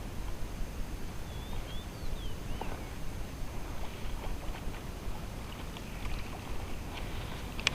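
Steady low rumble of outdoor background noise on an action camera's microphone, with a few short chirping bird calls about two seconds in and faint scattered ticks.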